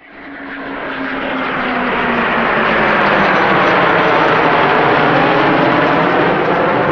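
Three Eurofighter Typhoon fighters, each with twin EJ200 turbofans, passing in formation: a loud, steady jet roar that builds over the first two seconds and then holds.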